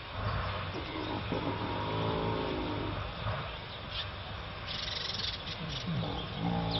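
Several American alligators bellowing in the water: deep, rumbling calls with rising and falling pitched tones over them. This is the courtship and territorial call that alligators use in the mating season.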